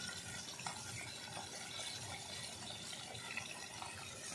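Small tilapia pieces frying in oil in a wok: a steady, even sizzle.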